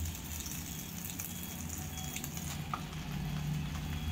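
Washed gongura (sorrel) leaves sizzling in hot oil in a pan: a steady hiss with faint scattered pops, over a low steady hum.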